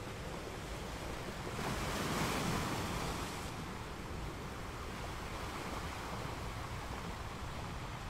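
Sea waves washing as a steady rush of surf, with one wave swelling louder about two seconds in and then easing back.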